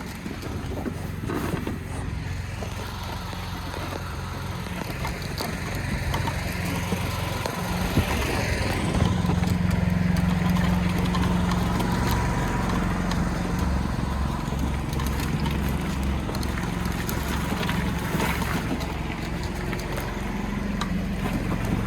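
Engine of a small vehicle running steadily as it is driven, getting louder with a stronger engine note from about eight seconds in.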